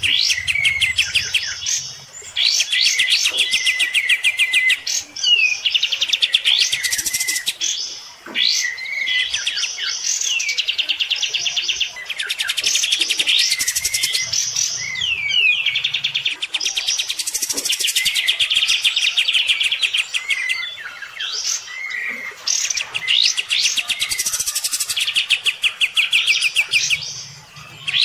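Kapas tembak, a bulbul, singing hard and loud. It pours out fast, rattling trills in phrases a few seconds long, with short pauses between them.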